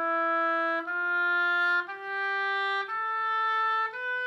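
Solo oboe playing a rising scale of the seven notes, one steady held note about every second, each a step higher than the last.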